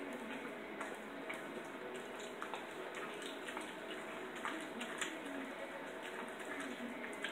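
Jack Russell terrier chewing a raw Cornish hen back: wet, squelching chews with irregular sharp clicks.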